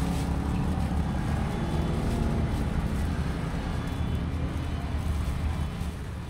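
Motor vehicle engine running close by, a low steady rumble that eases off near the end.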